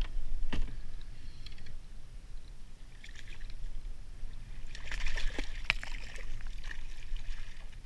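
Water splashing and sloshing as a hand reaches into the sea beside a kayak, in a burst of splashes about five seconds in. A single knock sounds about half a second in.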